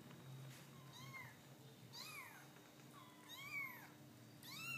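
Young kittens mewing: four short, high calls about a second apart, each rising and then falling in pitch.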